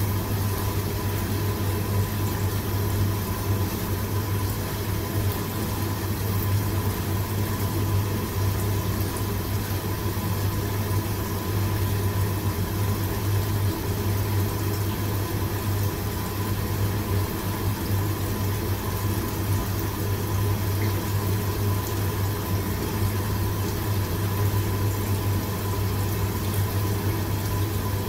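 Steady hum and rush of a commercial Chinese wok station, its gas burner running under a wok of boiling soup, with water pouring from the wok-station tap. A faint steady high tone runs over it.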